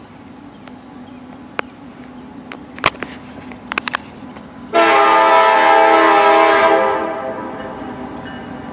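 Norfolk Southern diesel locomotive sounding its air horn in one loud blast of about two seconds, a chord of several tones, starting a little before halfway and trailing off. Before the horn, a steady low rumble of the approaching train and a few sharp clicks.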